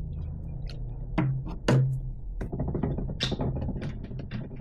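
A recumbent tricycle's drivetrain being turned, its chain running through the chain guide pulleys with a few sharp clicks, then a fast run of ratchet-like clicking from about halfway.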